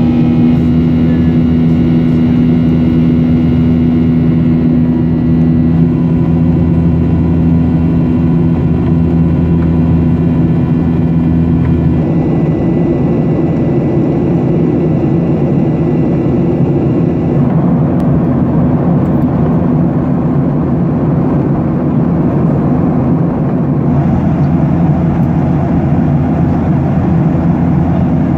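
Jet airliner in cruise heard from inside the passenger cabin: the steady drone of the jet engines and rushing air, with a low steady hum. The hum's pitch shifts slightly twice.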